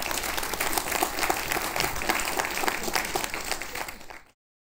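Audience applauding: a dense patter of many hands clapping, which cuts off suddenly near the end.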